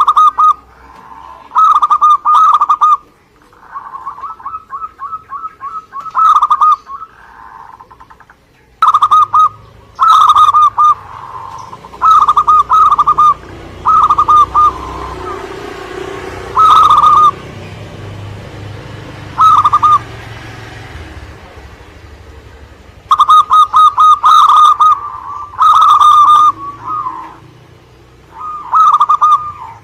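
Zebra dove (perkutut) cooing over and over in short rolling phrases, with a faster string of short notes a few seconds in.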